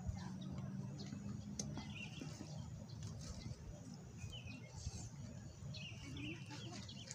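Birds chirping faintly in a few short bursts of calls, over a low rumble of wind on the microphone, with a couple of light clinks of a spoon on a plate.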